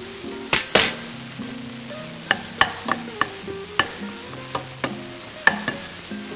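Wooden spoon stirring ground meat in a stainless steel pot, knocking against the pot: two loud clacks about half a second in, then a run of lighter clacks, over a faint sizzle of the hot meat.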